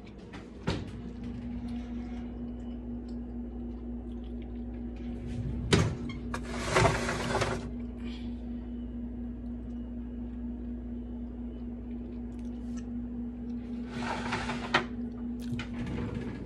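Microwave oven running with a steady electrical hum, heating a piece of turkey; it starts with a click about a second in. A sharp knock about six seconds in and two short bursts of hiss, in the middle and near the end, sound over the hum.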